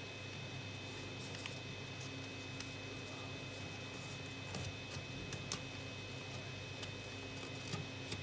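Origami paper being folded and pressed by hand: faint rustles and a few light crisp clicks as the folds are creased, over a steady background hum.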